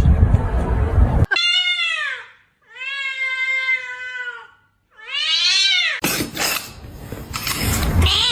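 A domestic cat meowing three times in long, drawn-out calls, the middle one held at a steady pitch for nearly two seconds. Loud noise without a pitch comes before the calls and returns after them.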